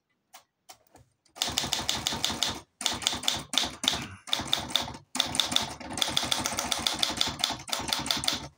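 Olympia SG1 manual office typewriter being typed on fast, its type bars striking in quick runs of about ten strokes a second, broken by a few short pauses.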